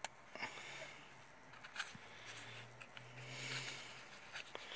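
Handling noise: rustling with a few light clicks and scrapes as a hand moves a cloth and small items.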